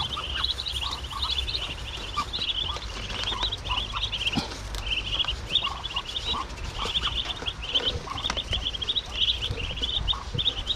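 Dense, continuous chorus of rapid high-pitched peeping from many baby fowl, with a few lower calls scattered through.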